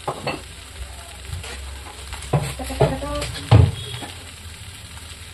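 Arbi (colocasia) frying over a high flame in an iron kadhai: a steady sizzle, broken by a few clinks and knocks of metal against the pan. The loudest knock comes about three and a half seconds in.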